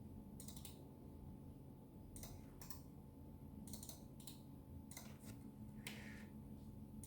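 Faint computer mouse clicks, mostly in quick pairs and small groups, over a low steady hum.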